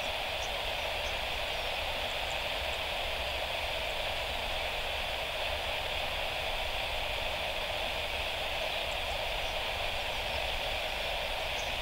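Steady hiss and hum of a Boeing 737-800's jet engines at taxi idle, heard from a distance, with no change in level.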